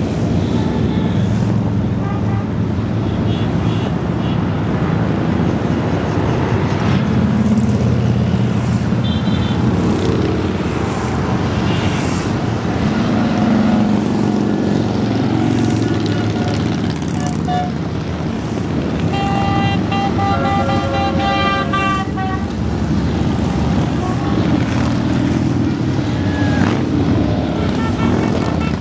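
Many cruiser motorcycles rumbling past in a continuous procession. A horn sounds for about three seconds about two-thirds of the way through.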